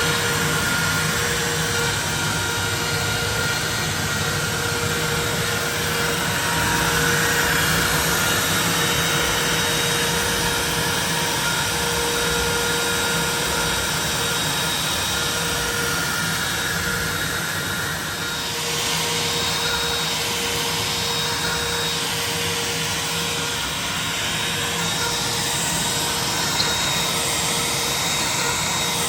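CNC router spindle running and cutting wood: a steady whine over a loud rushing noise, which changes character about two-thirds of the way through.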